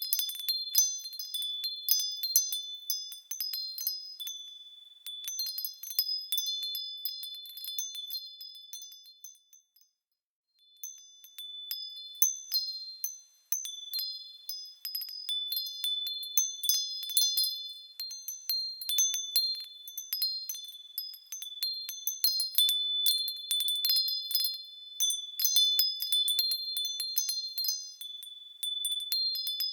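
Wind chimes ringing in the breeze, high-pitched tones struck in irregular clusters. The ringing fades away to a moment of silence about ten seconds in, then picks up again.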